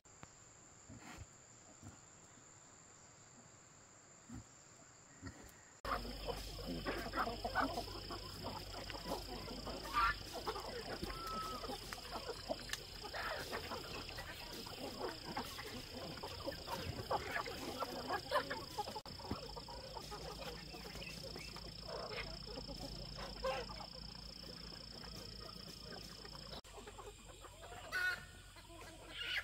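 Chickens clucking: many short, irregular calls over a steady high-pitched tone. The first six seconds or so are much quieter before the clucking starts.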